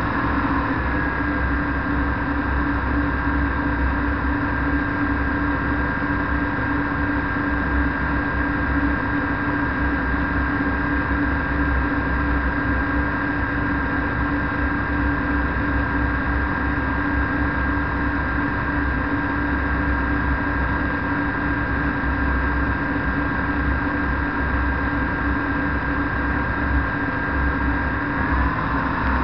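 Flexwing microlight trike's engine and propeller droning steadily in cruise, with wind buffeting the microphone. The engine note shifts slightly about a second in and again near the end.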